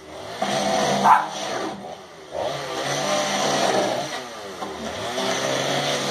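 Gas chainsaw revving up and dropping back repeatedly while cutting into a hot tub shell. The engine pitch rises and falls every second or two, easing off briefly near the start and again about two seconds in.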